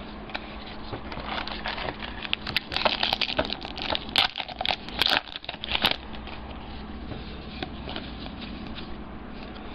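Plastic card-pack wrapper crinkling and tearing open, with trading cards rustling and shuffling in the hands. It is busiest in the first six seconds, then drops to faint handling.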